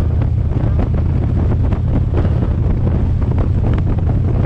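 Wind buffeting the microphone of a moving car: a steady, loud low rumble, with road noise underneath.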